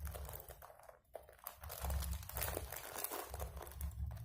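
Plastic instant-noodle wrapper stuffed with dacron filling, crinkling and crackling in a rapid, irregular way as it is handled and trimmed, over a steady low hum.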